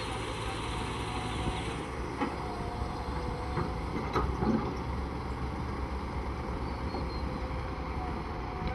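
Steady low engine or machinery rumble with a few scattered sharp knocks, the loudest about four seconds in. A brighter hiss over the rumble stops about two seconds in.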